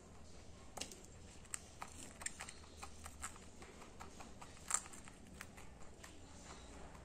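Rabbit eating puffed rice from a stainless steel bowl: faint, irregular crisp crunches and clicks, with one sharper click about two-thirds of the way through.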